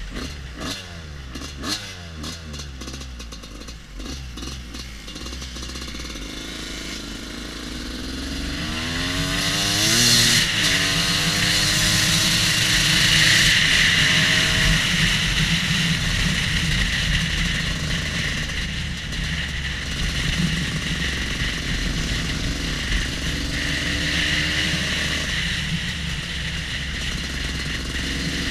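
Off-road motorcycle being ridden, heard from the bike itself: the engine's pitch falls at the start as it slows, climbs sharply as it revs up about a third of the way in, then settles into steady running. Wind noise and road rumble fill the rest, with the bike on brick paving.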